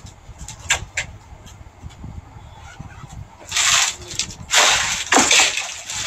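Clothes on hangers being handled at a clothes rack: a few light clicks in the first second, then two bursts of rustling, about three and a half and four and a half seconds in.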